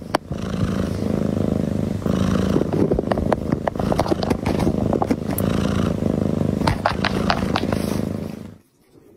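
Domestic cat purring loudly right at the microphone, in a steady rumble that swells and eases with each breath, with scattered clicks. The purring stops abruptly near the end.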